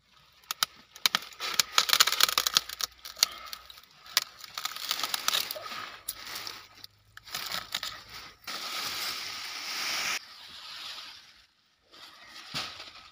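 Hand pruning shears crunching through a thick guava trunk: a dense run of sharp cracks and creaks over the first few seconds as the blade bites through the wood. Then leafy rustling as the cut branch comes down and is handled.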